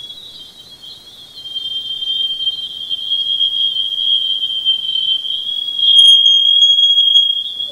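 Voyager 2 Plasma Wave Science recording of Jupiter's magnetosphere played as audio: a steady high-pitched whistling band with hiss above it, growing louder about a second and a half in. About six seconds in it is loudest, the low background hiss drops out, and faint higher tones sound briefly.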